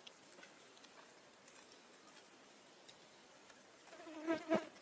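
Faint rustling with light ticks, then about four seconds in a short, wavering macaque call lasting about half a second, rising twice to a peak.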